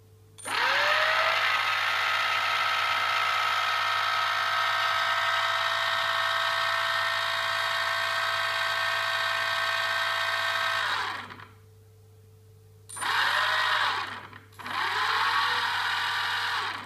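NTM Prop Drive 28-30 800KV brushless outrunner motor spinning up to a steady high whine with a rattle, running for about ten seconds and then spinning down, followed by two short spin-ups. The rattle comes with heavy vibration, which the owner takes for a bad bearing.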